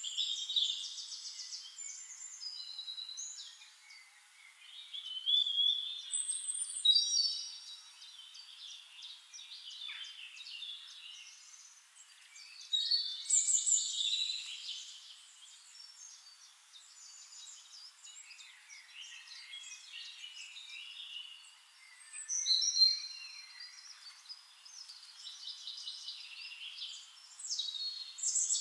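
Several songbirds singing at once: overlapping quick, high chirping phrases, with louder bursts of song every several seconds.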